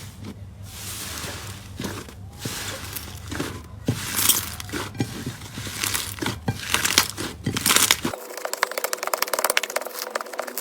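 Slime being squeezed and pressed by hand, giving irregular crinkly, crunchy bursts. About eight seconds in the sound changes abruptly to a dense, fast crackling.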